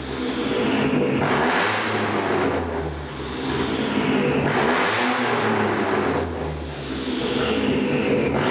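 Toyota GR Yaris's turbocharged 1.6-litre three-cylinder engine revved at standstill through a custom titanium exhaust: three blips a few seconds apart, each rising and then dropping back toward idle.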